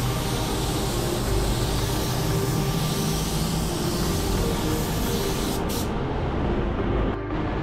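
Automotive paint spray gun hissing steadily over a low steady hum. The spray hiss cuts off suddenly about six seconds in.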